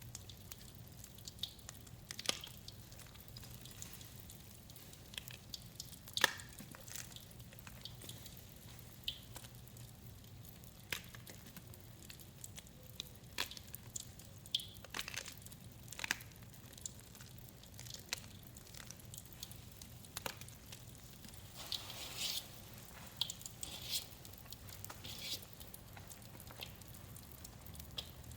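Gym chalk being crushed and squished in wet, cleaner-coated hands: soft squishes with scattered sharp crackles and clicks at an uneven pace, thickest about three quarters of the way through.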